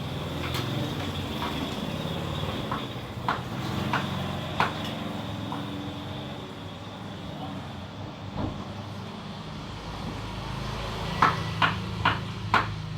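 Knife knocking on a cutting board while button mushrooms are sliced: a few scattered sharp knocks, then a quicker run of four near the end, over a steady low hum.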